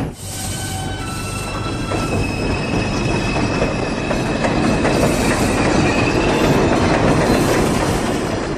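New York City subway train pulling out of the station: a steady rumble of the cars on the rails, with thin high-pitched squealing tones held over it.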